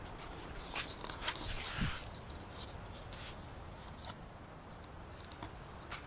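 Faint footsteps and light scuffing on a walk, with scattered small clicks and a brief scratchy rustle a little over a second in.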